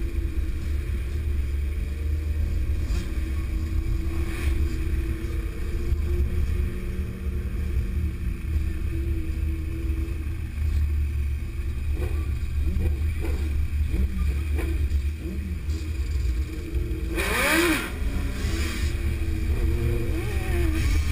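A group of motorcycles, sportbikes and dirt bikes, rolling along at low speed, engines running steadily over a low rumble. There are a few short revs about twelve to fifteen seconds in and a louder rev about seventeen seconds in.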